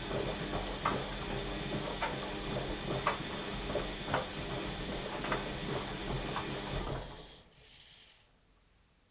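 Washing machine running mid-program: a steady motor hum with a sharp knock about once a second as the drum turns. About seven seconds in it winds down and stops, leaving near quiet.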